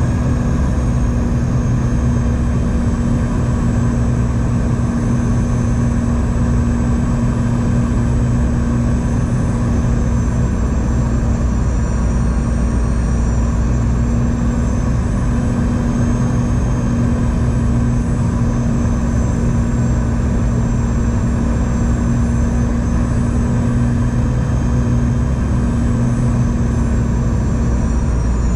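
Steady drone of a Boeing 717-200's rear-mounted Rolls-Royce BR715 turbofans heard inside the cabin. A strong low hum runs under a faint, slightly wavering high whine.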